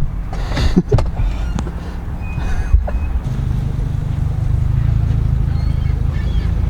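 Low, steady rumble of a car running, with a few sharp knocks in the first three seconds; the rumble becomes steadier and denser about three seconds in.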